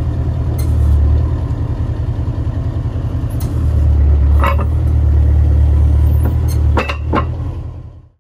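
Scania R143H tow truck's 14-litre V8 diesel running with a low, steady hum. It gets louder briefly about a second in and again for a few seconds in the middle while the hydraulic underlift arm is being moved. A handful of metallic knocks come from the underlift, and the sound fades out at the end.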